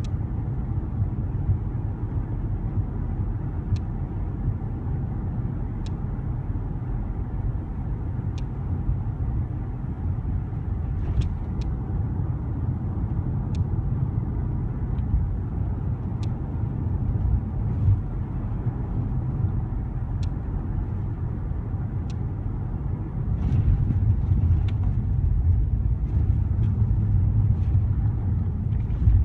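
Interior of a car driving with the windows closed: a steady low road and engine rumble, with occasional faint ticks and rattles, growing a little louder about 23 seconds in.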